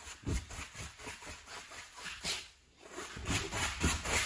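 Wide bristle brush scrubbing acrylic paint onto a stretched canvas, in quick, uneven back-and-forth strokes that scratch over the foil-textured surface, with a short pause about two and a half seconds in.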